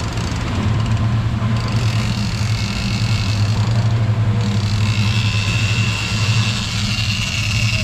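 Twin Mercury outboard motors running under way, a steady low drone over the rush of wake and water. A high steady whine joins about a second and a half in and grows stronger about four and a half seconds in.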